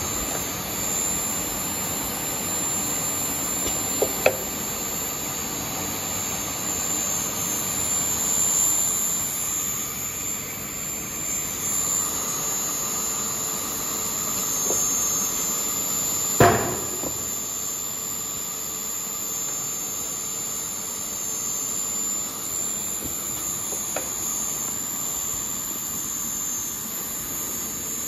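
PP melt-blown filter cartridge production machine running steadily, with a constant whirring hum and a thin high whine. A few sharp knocks break through: a pair about four seconds in, and the loudest about sixteen seconds in.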